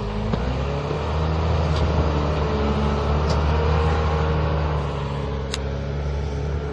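Diesel engine of a wheel loader running close by, picking up speed and getting louder about a second in, then settling back down near the five-second mark. A single sharp click about five and a half seconds in.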